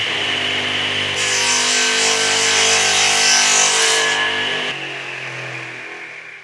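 Sound effect of a power tool cutting wood: a steady motor whine with a harsh, hissing cut from about one to four seconds in, then the motor drops lower and fades out near the end.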